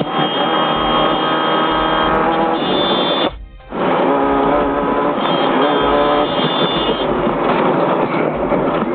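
Off-road race vehicle's engine running hard under load, heard from inside the cab, with its pitch shifting as the revs change. The sound briefly cuts out for about half a second around a third of the way in.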